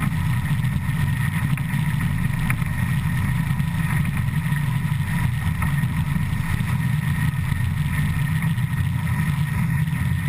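Steady, loud rumble of the ČSD class 475.1 steam locomotive's driving wheels and running gear on the rails, heard close up while it runs at speed.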